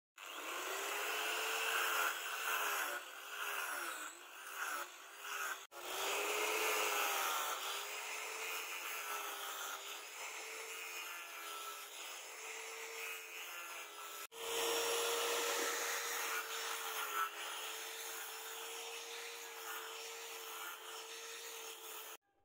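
Angle grinder with a rubber-backed sanding disc sanding a wooden knife handle: a steady motor whine under a rough sanding hiss. The whine sags in pitch and recovers each time the disc is pressed into the wood, and the sound breaks off very briefly twice.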